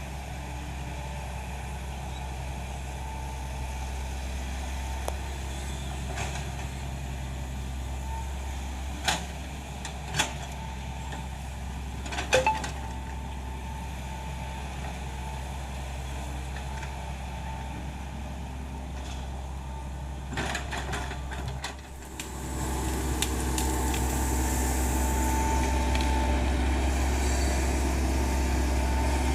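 Hitachi Zaxis 110 hydraulic excavator's diesel engine running steadily, with a few sharp knocks about nine, ten and twelve seconds in. About 22 seconds in the sound dips briefly, then the engine runs louder.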